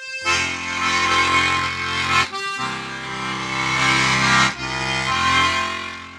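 Accordion playing three long held chords, each a couple of seconds, with brief breaks between them, the last one fading away.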